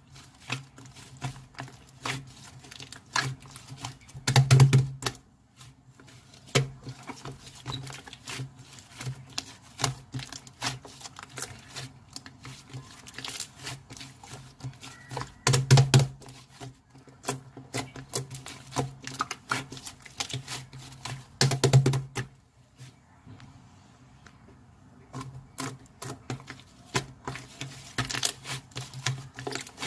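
Slime being squeezed and kneaded by hand, making rapid crackly clicks and pops, with three louder squishes partway through.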